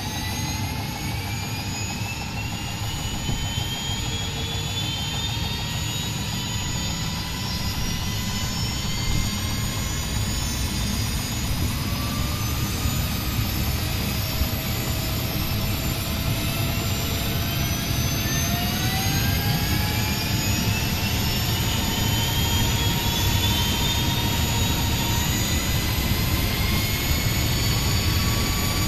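Esky CP V2 electric radio-controlled helicopter spooling up on the ground. A motor and gear whine rises in pitch several times over the steady rush of the spinning main rotor, getting slowly louder.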